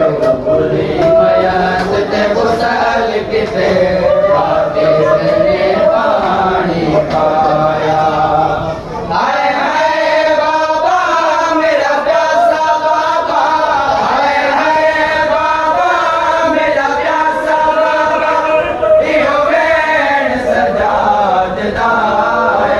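Male voices chanting a noha, a Shia mourning lament, with mourners joining in. About nine seconds in, the deep low part of the sound drops away and the chant sounds thinner and brighter.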